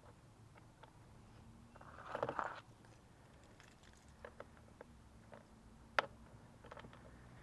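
Handling noises from removing screws and push pins from the plastic body panels of a Suzuki Burgman 400 scooter. A short rustling scrape comes about two seconds in, then scattered light clicks and taps, with one sharper click about six seconds in.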